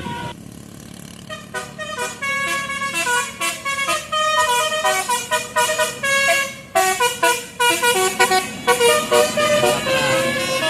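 Bus telolet horn, a multi-tone air horn, playing a fast tune of short notes that jump from pitch to pitch, starting about a second and a half in.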